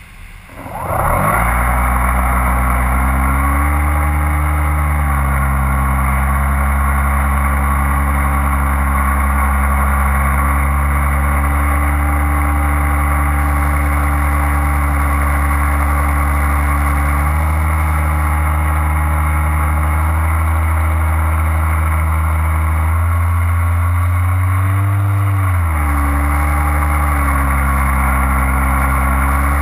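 A small engine, probably that of the filming aircraft, starts up loud about a second in and then runs steadily, with its pitch shifting slightly a few times. Near the end its pitch rises and falls back as the throttle is opened and eased.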